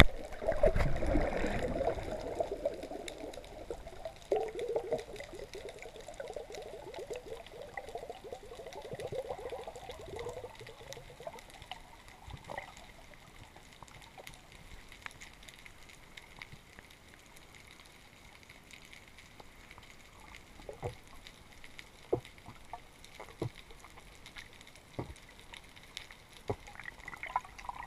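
Underwater sound through the camera's housing: water bubbling and gurgling, loudest in the first couple of seconds and dying away after about ten seconds. After that there is a faint hiss with scattered sharp clicks.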